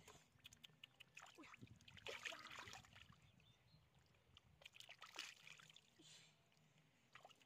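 Faint splashing and squelching of hands groping through shallow muddy water, in several short bursts, the loudest about two seconds in.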